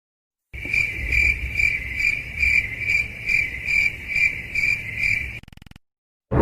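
Cricket chirping sound effect, the meme 'crickets' used for an awkward silence: a steady shrill trill pulsing about two and a half times a second. It starts about half a second in and cuts off abruptly near the end.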